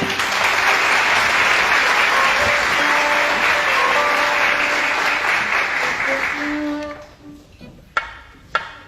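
Audience applauding, with a few faint held instrument notes beneath; the clapping dies away about seven seconds in. Near the end, a few sharp knocks.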